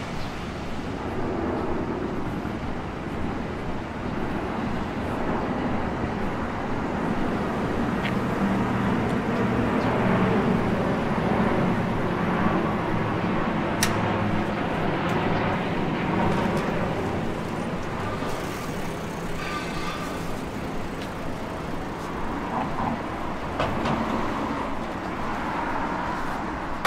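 Road traffic on a city street: motor vehicles running and passing, a steady noise that grows a little louder around the middle.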